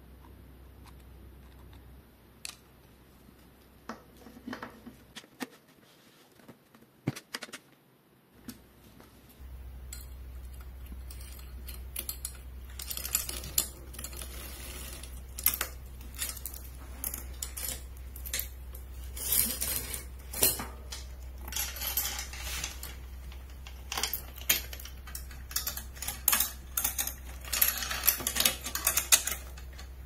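Small metal clinks, clicks and rattles of tools and parts being handled during bicycle work, sparse at first and busier from about twelve seconds in. A low steady hum runs underneath and drops out for a few seconds early on.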